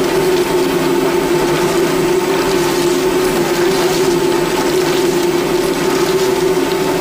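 Curtain frying machine running, a steady machine hum with a constant tone over a continuous mechanical noise as its conveyor carries fried snacks out.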